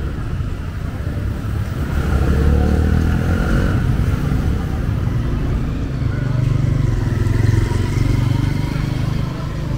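Street traffic with motorbike engines running close by. The engine rumble swells twice as bikes pass.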